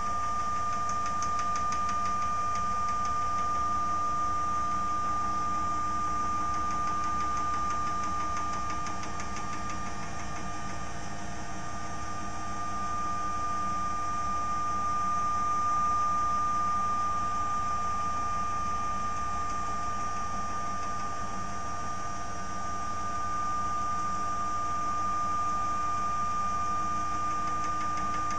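Homemade CNC machine's gantry being driven slowly along its unsupported rails by its drive motors: a steady electric whine with one strong high tone, swelling slightly about halfway through.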